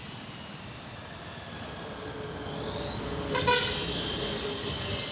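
Road traffic rumble with a short vehicle horn toot about three and a half seconds in, followed by a steady high hiss.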